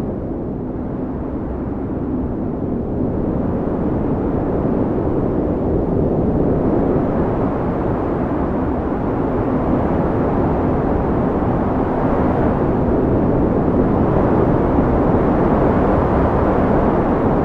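Blizzard wind: a steady deep rushing that slowly swells stronger, with a faint low howl coming and going through it.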